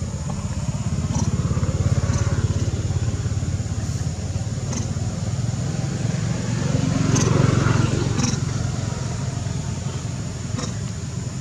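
A motor vehicle's engine running steadily, growing louder about seven seconds in and then easing off.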